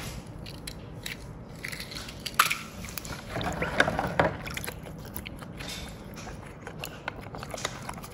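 Small hard objects being handled: scattered light clicks and scrapes, with a few louder knocks about two and a half and four seconds in.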